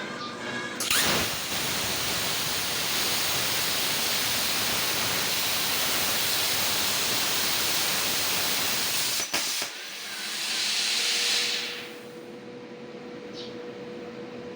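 CNC plasma cutter on an LGK 80 power source: the arc starts abruptly about a second in and cuts with a loud steady hiss for about eight seconds, then cuts off suddenly. A second, shorter hiss follows, swelling and fading over about two seconds, leaving a steady hum.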